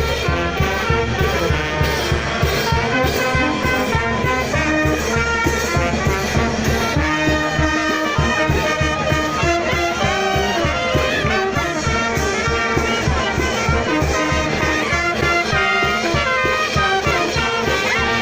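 Brass band music playing, with trumpets and trombones over a steady beat.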